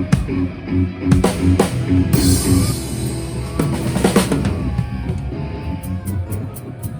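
Rock music with a full drum kit playing over bass and guitar: kick, snare and tom strokes, with a cymbal crash ringing out about two seconds in.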